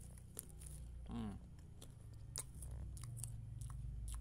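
Chewing thick, hard potato-cracker snack sticks in the mouth: scattered sharp crunches. There is a brief voiced murmur about a second in, over a low steady hum.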